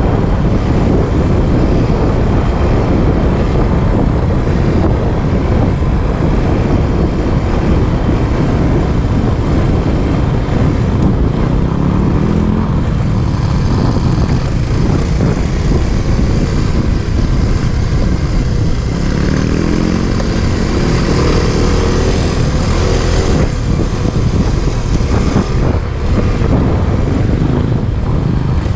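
Dirt bike engine running while riding a rough gravel track, recorded on the bike under a dense low rumble of ride and wind noise. The engine note rises as it accelerates about twelve seconds in and again around twenty seconds in.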